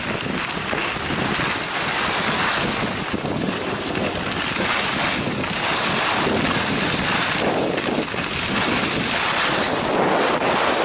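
Wind rushing over a handheld camcorder's microphone while skiing downhill, mixed with the hiss of skis sliding on groomed snow. The noise swells and eases every second or two, with the turns.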